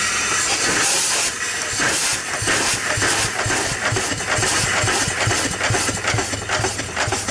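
Small horizontal steam engine being started on steam: steam hisses steadily from the open exhaust and cylinder, and from about two seconds in the engine picks up a steady chuff of about three beats a second as the flywheel turns.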